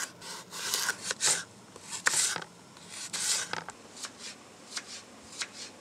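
Kitchen knife slicing through raw carrot on a wooden cutting board: a run of irregular slicing strokes, a few louder than the rest.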